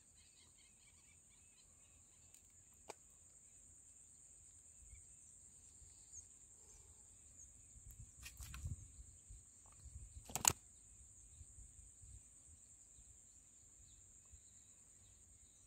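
Faint outdoor ambience: a steady high-pitched drone with a few faint bird chirps. Two sharp knocks come in the latter half, the louder one about two-thirds of the way through.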